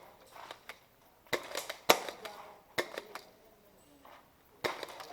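Five separate sharp snaps and knocks during airsoft play, the loudest about two seconds in: airsoft gunfire and BBs striking the field's obstacles.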